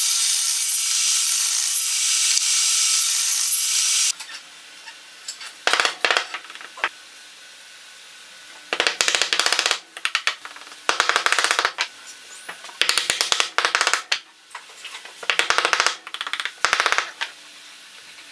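Table saw cutting a groove into a small hardwood block, stopping abruptly about four seconds in. After that, about six bursts of rapid light hammer taps, each about a second long, as thin wooden strips are driven into the grooves.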